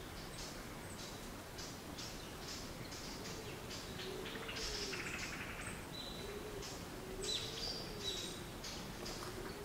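Birdsong: many short, high chirps throughout, with a low call that rises and falls again and again from about three seconds in, over a faint hiss.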